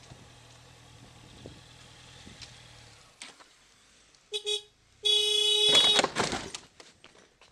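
A vehicle horn gives a short toot and then a longer blast as a van reverses into a stopped motorcycle, followed by a burst of knocks and clatter as the van makes contact. A low engine hum fades out about three seconds in, before the horn.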